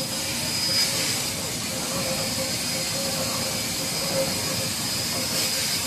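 CNC gantry cutting torch cutting through steel plate: a steady loud hiss, with a steady hum and a high whistle running through it.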